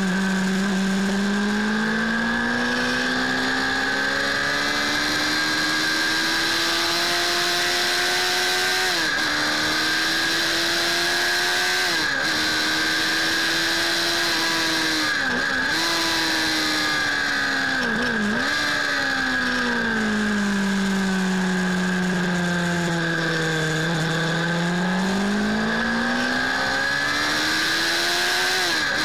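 Suzuki Bandit S 600's inline-four engine at full ride on a race track, revs climbing with several short dips in pitch as it shifts up. About two-thirds of the way through the revs fall for a few seconds as the throttle closes, then climb again, with one more shift near the end. A steady rush of wind on the handlebar-mounted microphone runs under the engine throughout.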